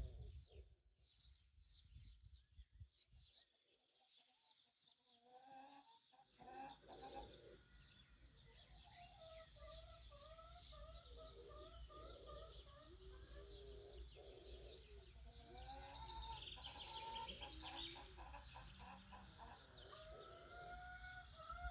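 Chickens clucking in short repeated calls, with small songbirds chirping high above them. The calls start about six seconds in after a near-silent start and grow busier toward the end.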